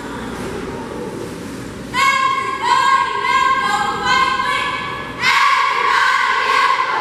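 Middle-school pep squad shouting a cheer in unison, high girls' voices in long drawn-out syllables, coming in about two seconds in over the murmur of a crowd in the bleachers.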